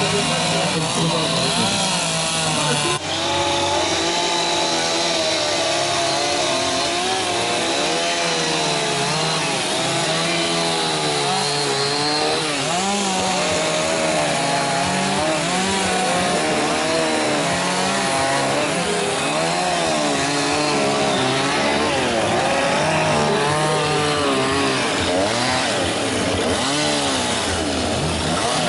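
Chainsaw carving wood, its two-stroke engine revving up and down continuously as the blade cuts, with a brief drop about three seconds in.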